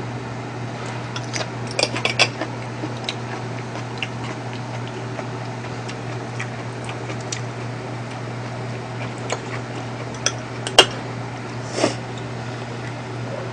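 Metal spoon and chopsticks clinking and scraping against ceramic bowls during a meal: a few scattered light clicks, the sharpest about eleven seconds in. A steady low hum runs underneath.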